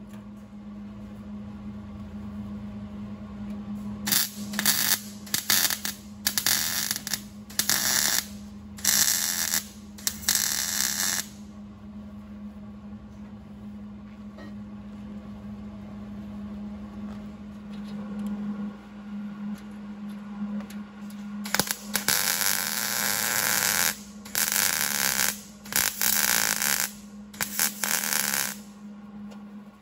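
Two runs of short, loud, noisy bursts from a power tool working the header's sheet metal, over a steady low hum.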